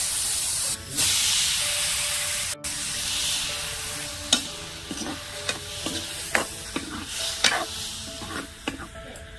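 Hot oil sizzling loudly in a kadhai as sliced onions fry, dying down after about three seconds. Then a steel ladle stirs and scrapes food around the metal pan, with a series of sharp clicks.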